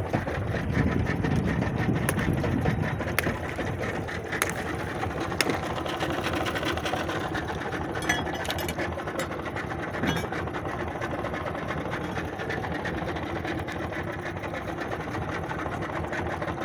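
Small fishing boat's outboard motor running steadily, with a few sharp knocks now and then.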